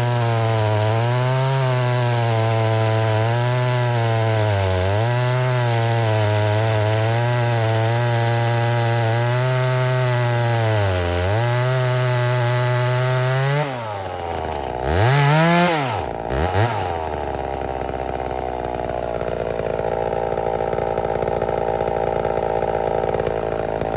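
Homelite Super XL-923 82cc two-stroke chainsaw running at full throttle in a cut, its pitch sagging and recovering under load. About 14 seconds in the throttle is let off, the engine is blipped twice, and then it settles to an idle.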